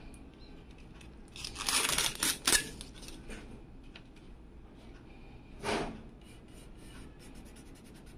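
Clear plastic bag crinkling and rustling as it is pulled off a graphics card, in a few short bursts. The loudest comes about two to two and a half seconds in, and a brief rustle follows near six seconds.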